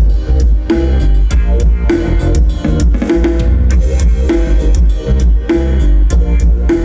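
Music with a steady drum beat and heavy deep bass, played loud through an outdoor PA system of 18-inch cast-frame subwoofers and 12-inch mid cabinets, to show how heavy its bass is.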